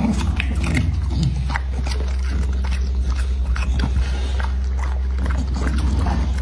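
A bully-breed dog chewing pumpkin and lotus root slices with its mouth open: a quick, uneven run of wet smacks and crunchy clicks, over a steady low hum.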